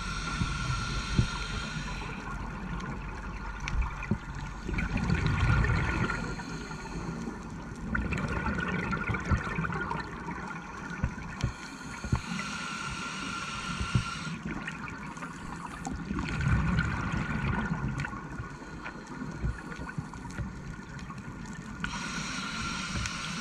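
Scuba diver breathing through a regulator underwater: a hiss of inhalation followed a few seconds later by a burst of bubbling exhaled air, in a cycle of about ten seconds that repeats twice. Scattered sharp clicks and a faint steady whine sit beneath it.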